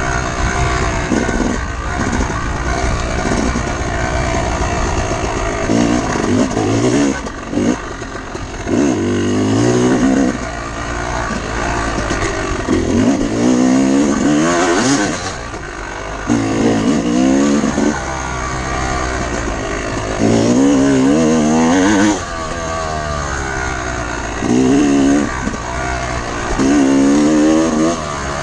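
Off-road motorcycle engine under hard throttle, revving up in repeated rising sweeps about seven times as the rider accelerates and backs off, over a steady low rumble of wind and riding noise.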